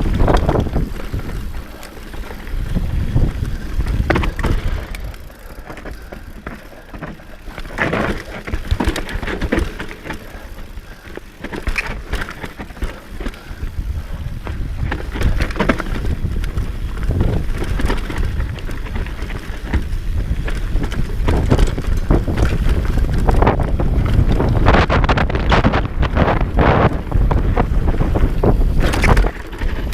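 Wind buffeting the microphone while riding a rough dirt trail, with a constant rumble and many short knocks and rattles from the ride. It is louder and busier in the second half.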